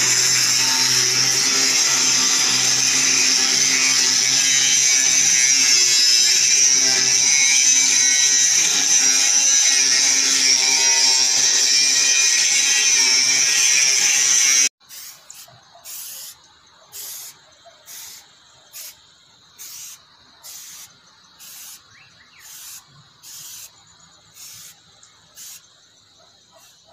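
Angle grinder grinding down a steel weld root, a loud steady high-pitched run that cuts off abruptly about halfway. After that, short hisses about once a second, typical of an aerosol can spraying red dye penetrant onto the weld for a DPT check.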